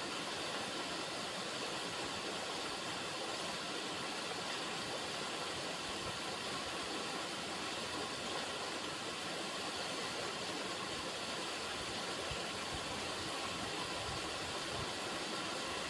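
River water flowing: a steady, even noise with no breaks or changes.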